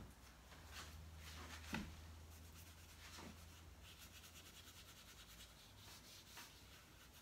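Faint rubbing and scratching of a paintbrush on paper: a few separate strokes, then a stretch of quick back-and-forth scrubbing.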